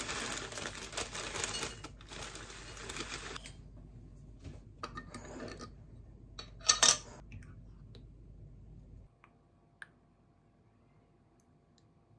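Granola poured from a plastic bag into a glass dessert cup: a dense rattle of falling clusters with bag crinkle for about three and a half seconds, then a few shorter rattles. A short, sharp knock about seven seconds in is the loudest sound, followed by quiet with one faint tap.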